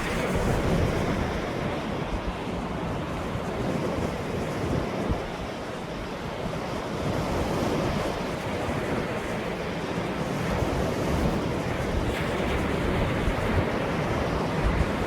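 Ocean waves washing ashore in a steady, rushing surf that swells and eases gently, with low wind rumble on the microphone.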